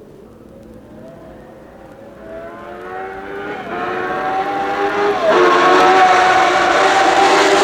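A 1960s Formula One car's racing engine approaching under hard acceleration, growing much louder. Its pitch climbs and drops sharply at two upshifts, about halfway through and again about two-thirds through.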